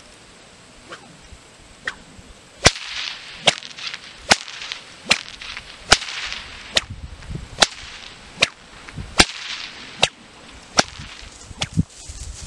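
A whip cracked again and again in a steady rhythm, about a dozen sharp cracks a little under one a second apart, starting a few seconds in and stopping shortly before the end, with the lash swishing between cracks.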